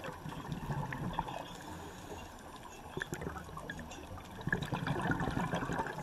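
Water bubbling and gurgling, with a louder stretch of bubbling about four and a half seconds in.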